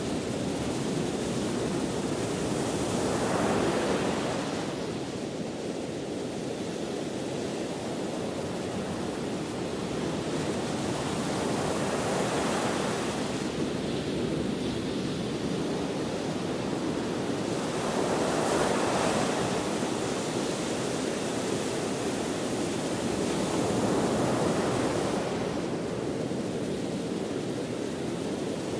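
Ocean waves breaking on the shore, four surges that each swell and fade over several seconds, under a steady wind.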